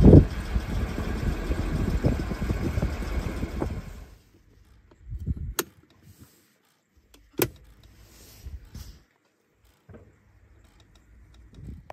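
A loud low rumble with a thump at the start, which cuts off about four seconds in. Then two sharp clicks about two seconds apart as the lever of the 1979 Jaguar 4.2's automatic gear selector is moved through its positions.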